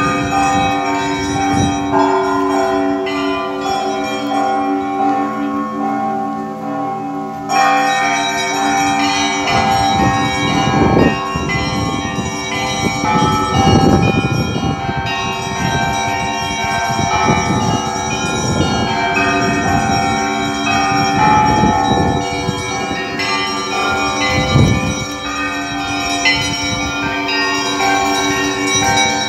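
Orthodox church bells being rung: many bells of different pitches struck together in a continuous, dense peal of overlapping strokes and ringing tones.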